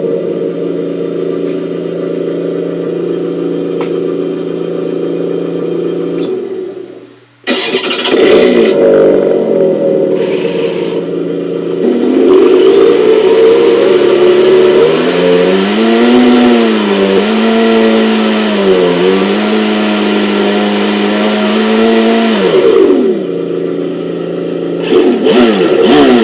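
Engine sound simulator on an MST MS-01D RC drift car playing a synthesized car engine through its speaker. It idles steadily, cuts out briefly and starts again, revs up, holds a long high rev whose pitch wavers up and down, drops back to idle, then gives a few quick throttle blips near the end.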